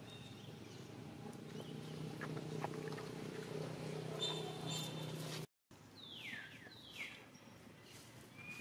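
Two short, high animal calls that fall steeply in pitch, about a second apart, in the second half. Before them a steady low hum with a few faint ticks and a brief high chirp, and the sound cuts out for an instant at an edit.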